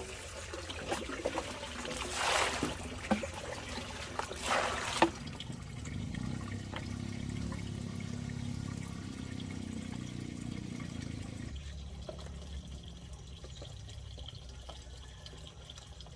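Water trickling and splashing, with two louder pours or splashes about two and four and a half seconds in, then a steadier low trickle that fades near the end.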